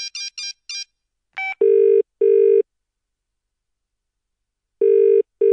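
A phone call being placed: a quick run of short electronic keypad beeps, a brief tone, then the British double-ring ringback tone, two short burrs, a pause of about two seconds, and two more burrs as the line rings out.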